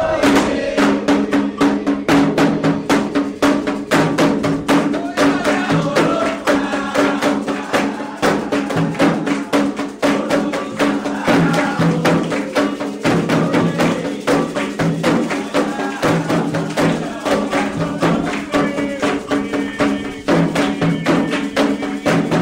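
Candomblé ritual music: atabaque hand drums played in a fast, driving rhythm with sharp bell or wood-block-like strikes, under voices singing.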